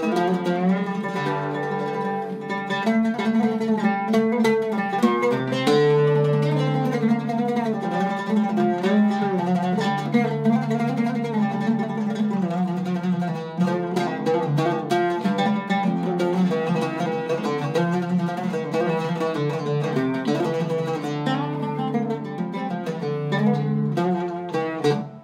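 A Zaryab Iraqi-style oud with a cedar soundboard played solo, plucked in a continuous melodic improvisation with quick runs of notes.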